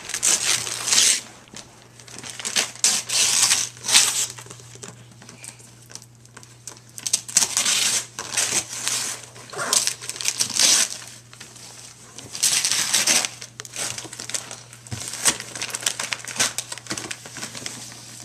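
Christmas wrapping paper being torn and crumpled off a gift, in repeated rustling bursts with short pauses between them, over a faint steady low hum.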